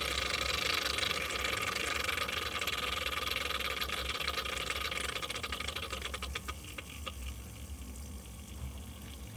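Small electric water pump drawing from a flooded sump pit while cavitating. It runs with a hissing, gurgling rush of air and water that crackles about six to seven seconds in and then thins out and gets quieter, over a low steady hum. It is sucking air and has stopped drawing water as the pit level drops.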